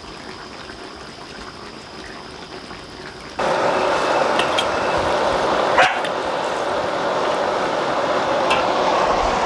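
Low steady hiss, then about three seconds in a louder steady rushing noise. Over it come a few short sharp sounds, including a single dog bark near the middle.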